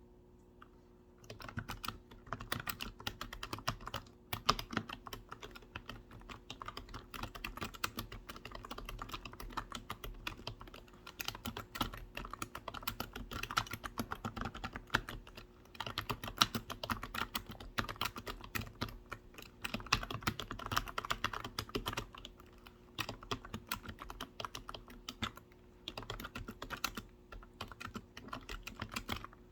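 Typing on a computer keyboard: a fast, dense run of key clicks that starts about a second in and keeps going, with a few brief pauses.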